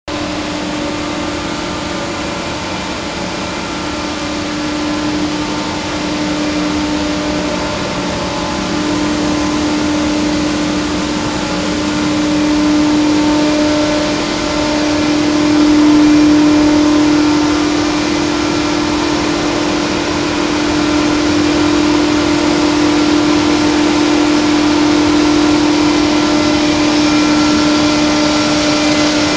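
Battenfeld BEX 1-90-30B pipe extrusion line running: a steady machinery hum with one strong low tone over an even rush, swelling slightly about halfway through.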